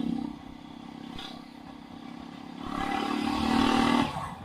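Jawa 42 motorcycle's single-cylinder engine and exhaust running on the move, a steady exhaust note that grows louder for about a second and a half near the end, then eases off.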